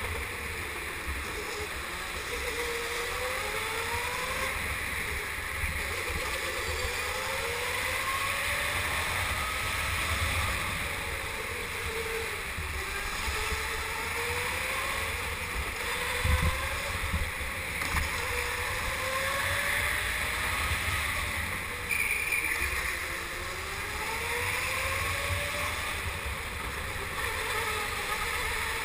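Go-kart motor heard from on board, its pitch repeatedly rising as the kart speeds up along each straight and dropping into the next corner, over a steady rush of wind. A single sharp knock about halfway through.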